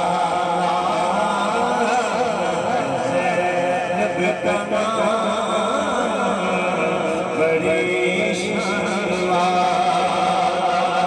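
Male voices chanting an Urdu naat, a devotional song in praise of the Prophet, with several voice lines layered over one another without a break.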